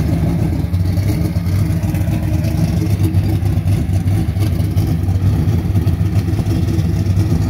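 Drag-racing Camaro's engine running at a steady, loud idle.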